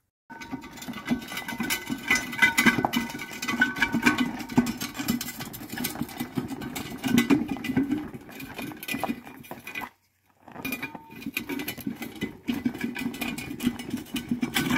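Gravel crunching and a bare steel car frame rattling as it is pushed by hand on its wheels, a dense run of small clicks and scrapes. The sound cuts out briefly about ten seconds in, then resumes.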